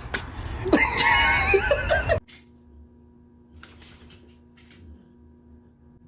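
A high voice with wavering pitch, laughter-like, for about two seconds, cut off suddenly. Then comes a much quieter stretch with a faint steady hum and a few soft rustles.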